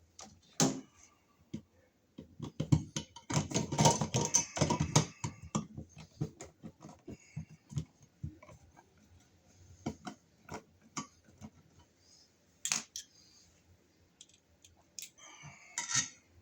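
Electrical box extender being fitted onto a shallow wall box around the wiring: scattered clicks and knocks, with a denser stretch of rattling and scraping about three seconds in.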